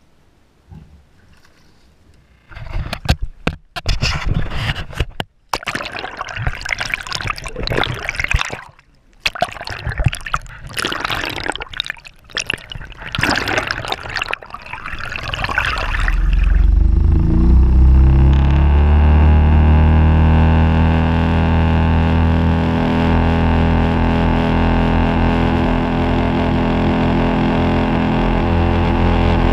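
Water gurgling and splashing over the camera as it dips under the surface, in loud ragged bursts, then a Suzuki four-stroke outboard motor comes up to speed, its pitch climbing and then running steady as the boat planes along.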